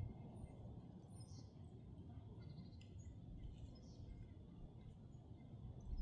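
Low wind rumble on the microphone, with a few faint, high bird chirps.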